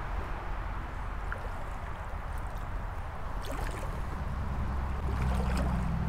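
Shallow creek water sloshing and splashing around a person's legs as they wade, with a few small splashes and a low rumble that grows louder about five seconds in.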